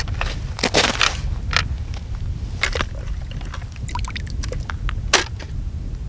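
Plastic ice-fishing tip-up being handled and set over an ice hole: scattered clicks and knocks, the sharpest about five seconds in, with small drips and splashes of water in the hole. A low rumble of wind on the microphone runs underneath.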